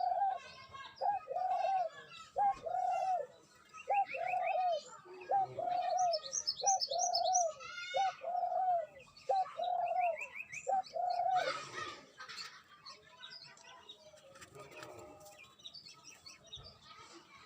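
A dove cooing in a run of short, arched notes about once a second, stopping about two-thirds of the way through, with small birds chirping over it.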